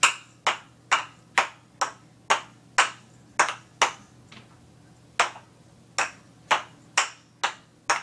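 Wooden kendama ball clacking into the cups about twice a second as it is tossed up and caught over and over (the 'juggling' trick). The rhythm breaks off briefly a little past halfway, then picks up again.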